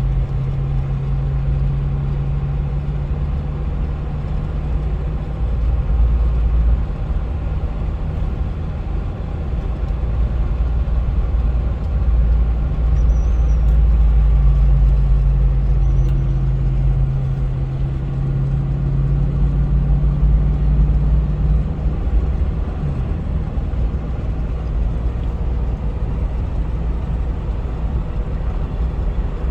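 Steady drone of engine and road noise from a Land Cruiser FJ80 running its swapped-in 6.0-litre V8 under load while towing a camper up a mountain road. It swells a little about 12 to 16 seconds in.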